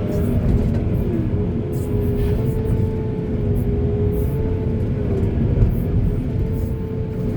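Backhoe's diesel engine running under load while digging, with a steady whine over the deep rumble and scattered short clicks and scrapes.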